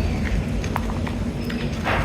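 A steady low rumble with scattered sharp clicks and a few faint, short bird chirps; a brief rush of noise comes near the end.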